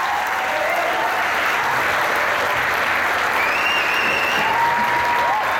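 Large seated audience applauding steadily, with a couple of drawn-out calls from the crowd over the clapping in the second half.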